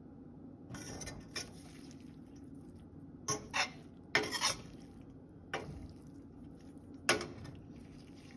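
Metal spoon scraping and clinking against a stainless steel frying pan while stirring fried pepper chicken, in several short, uneven strokes; the sharpest clinks come a little past the middle and about a second before the end.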